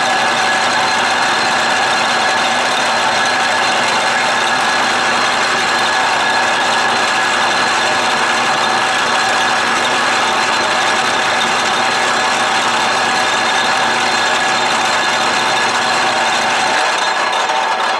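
Atlas Craftsman 12-inch lathe running loud and steady while its spindle-mounted cutter cuts the first tooth of a gear under power crossfeed. A steady whine sits over the machine's running noise.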